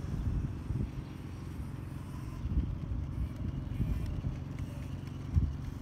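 Small 800 W electric quad bike driving across tarmac: a low, uneven rumble, with a louder bump about five seconds in.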